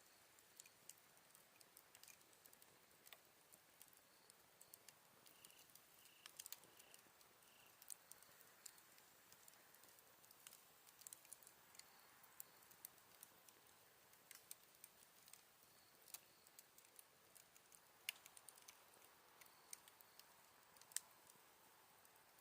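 Wood campfire crackling faintly, with irregular sharp pops and snaps. Autumn night insects chirp softly in short repeated notes, most clearly for a few seconds near the middle.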